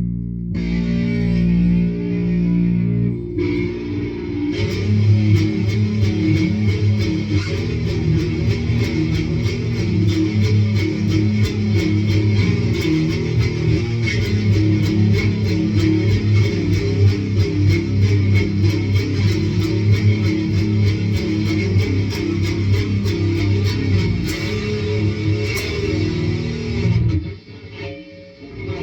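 Electric guitar in low A-sharp standard tuning played through an amp with overdrive and distortion pedals, giving a heavy, dirty tone. A chord rings for about three seconds, then a continuous picked riff runs on, dipping briefly near the end.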